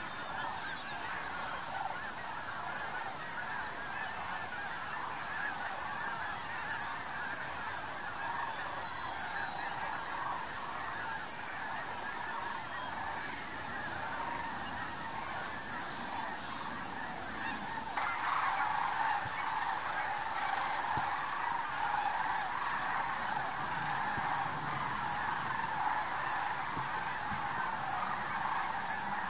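A large flock of geese honking continuously, many overlapping calls at once. The calling steps up suddenly in loudness about two-thirds of the way through.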